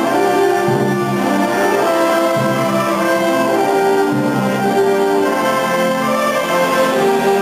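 School concert band playing a piece: French horns, trombones and clarinets are among the instruments. Full chords are held and change about every second.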